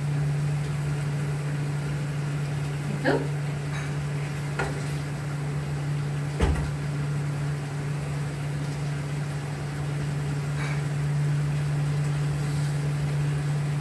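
Kitchen cooking sounds: a steady low hum with a few sharp clinks and knocks of utensils against a pot, the loudest a little past the middle.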